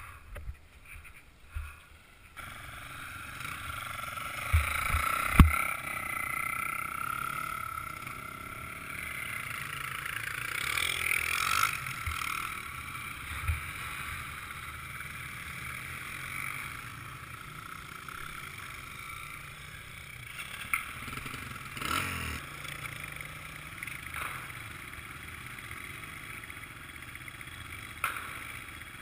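Off-road motorcycle engine running at low revs, muffled through a helmet camera's housing, with a few sharp knocks along the way.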